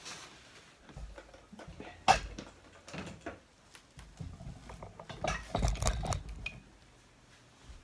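Handling noises: scattered light clicks and knocks, with a sharp knock about two seconds in and a short burst of clattering around five to six seconds in.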